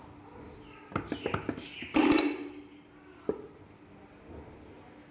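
Meat grinder crushing dry snack pellets: a quick run of sharp cracks, then a louder crunch about two seconds in, and one more crack a second later.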